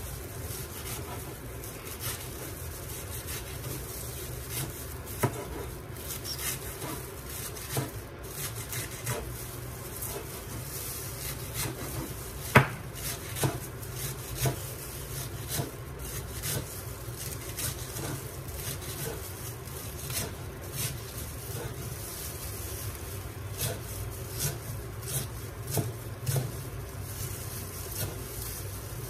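Irregular knocks and clatter of food preparation, like a knife and utensils working on a cutting board and in bowls, over a steady low hum.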